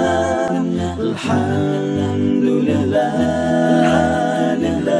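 Outro music: a cappella vocal music, several voices singing sustained lines in harmony over a low pulsing beat about twice a second.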